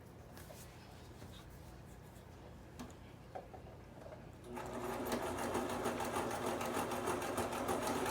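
Brother sewing machine starting up a little past halfway through and running fast and steadily in a rapid stitching rhythm, sewing hair wefts onto a wig cap. Before it starts there are only a couple of faint handling clicks.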